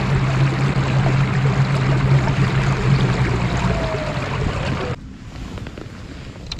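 Fishing kayak under way on a calm lake: water rushing along the hull with a steady low hum from the drive. Both cut off about five seconds in, leaving only a few faint clicks.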